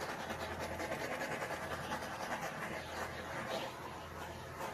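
Small handheld torch flame hissing steadily as it is swept over freshly poured resin to pop the surface bubbles.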